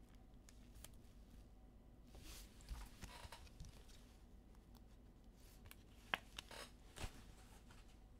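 Near silence with faint handling of trading cards and pack wrappers: soft rustles and a few light clicks, a little busier around three seconds in and again between six and seven seconds.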